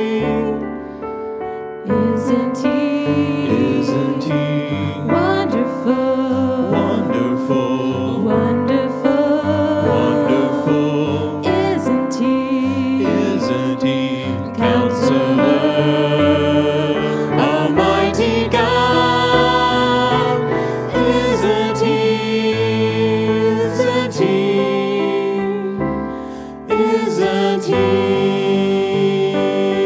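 Congregational worship song: many voices singing together over instrumental accompaniment, with short pauses between phrases.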